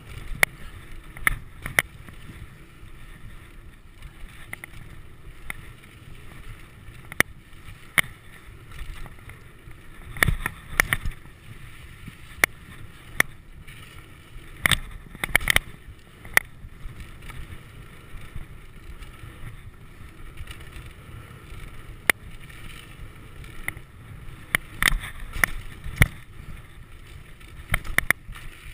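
Mountain bike riding down a dirt trail: a steady rumble of tyres and wind on the bike-mounted camera's microphone, broken by frequent sharp rattles and clacks of the bike over bumps. The rattles come thickest about ten, fifteen and twenty-five seconds in.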